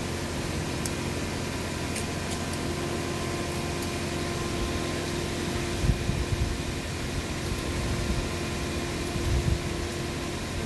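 Steady hum and hiss of an electric pedestal fan running, with a couple of low thumps about six and nine seconds in.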